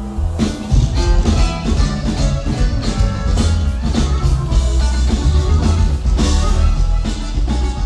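Norteño band playing live: accordion and bajo sexto over heavy electric bass and drums, at a steady beat.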